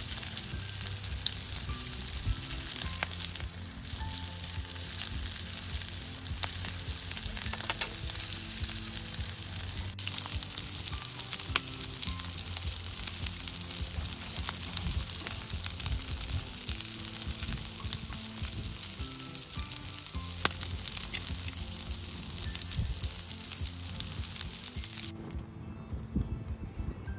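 Pieces of offal sizzling in a black iron frying pan over a wood fire, a steady hiss with scattered sharp crackles. The sizzle drops away sharply near the end.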